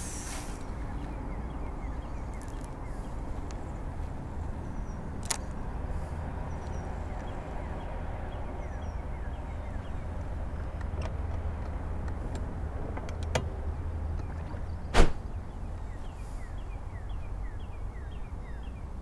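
Open-air ambience: a steady low rumble with faint, short high chirps, broken by a few sharp clicks, the loudest about three-quarters of the way through.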